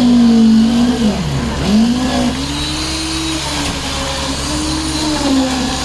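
A motor-driven machine runs with a steady hum and a whine. The whine drops sharply in pitch about a second and a half in, as if bogging under load, then climbs back and wavers.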